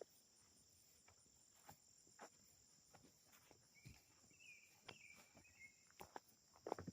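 Near silence: faint steady trilling of insects such as crickets, with a few soft clicks and a faint wavering chirp about four to five seconds in.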